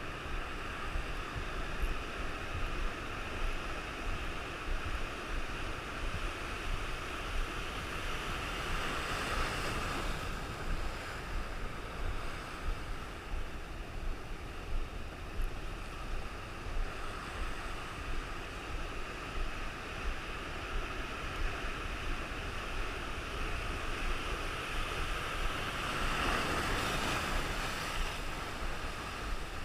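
Rough ocean surf: a steady rush of breaking waves, swelling into louder crashes about ten seconds in and again near the end, with wind rumbling on the microphone.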